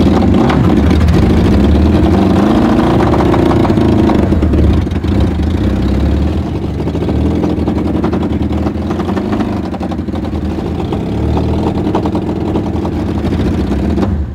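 The Honda Nighthawk motorcycle engine of a homemade twelve-wheel amphibious ATV runs loud under throttle as the machine drives. It is misfiring, going "boom, boom, boom" and then missing.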